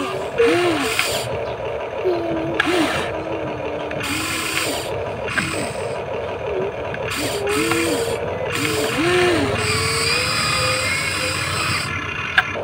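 Huina 1593 radio-controlled toy excavator's electric motors and gearboxes whirring as the boom, arm and bucket move. The whine rises and falls in short strokes as each movement starts and stops, with a sharp click near the end.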